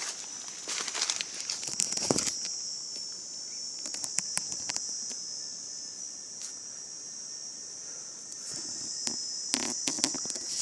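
Steady high-pitched insect chorus, with scattered sharp crackles and clicks, clustered in the first couple of seconds and again near the end.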